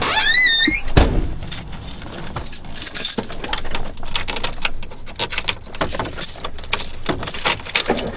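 A bunch of keys jangling, with a long run of small metallic clicks and rattles.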